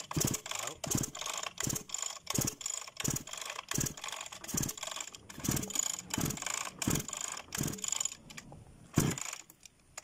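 Repeated metallic clicking in a steady rhythm, roughly one click every two-thirds of a second, from hand work with a tool on a converted chainsaw engine that is not running; the clicks thin out near the end, with one louder click about nine seconds in.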